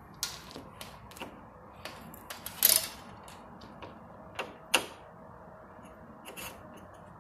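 A window being opened: an irregular run of mechanical clicks and clacks from the latch and frame, the loudest and longest a little under three seconds in.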